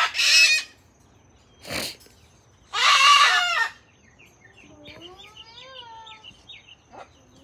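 Chickens squawking in alarm as they are pushed out of a wooden doghouse: a loud squawk at the start and another about three seconds in, then softer clucking and chirping, with a brief scuffle near two seconds.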